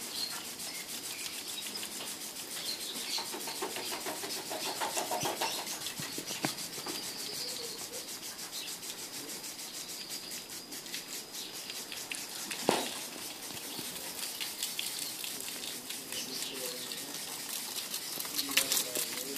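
Garden sprinkler spraying water, a steady hiss with a fast, even spattering patter. There is one sharp knock about thirteen seconds in.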